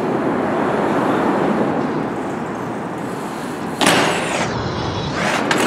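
Subway train running across the bridge overhead, a steady rumbling rush, with a sudden louder surge of noise about four seconds in.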